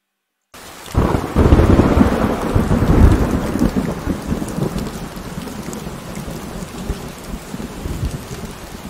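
Thunder sound effect: a loud crack about a second in, then a long rolling rumble with a hiss that slowly fades and cuts off suddenly near the end.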